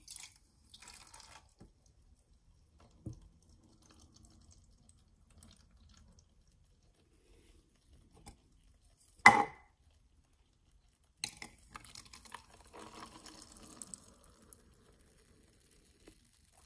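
Root beer poured into a clear plastic cup and fizzing into a foamy head, from about eleven seconds in. A short, loud burst about nine seconds in is the loudest sound, with a few small knocks of cups on the table earlier.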